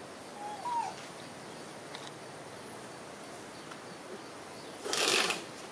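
A young monkey gives one short squeak, rising then falling in pitch, under a second in. About five seconds in comes a louder, harsh burst of noise lasting about half a second.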